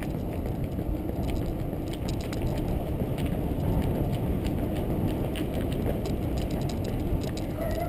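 Wind rumbling steadily on the microphone of a camera riding on a moving bicycle, with the bike's rolling noise and scattered light clicks.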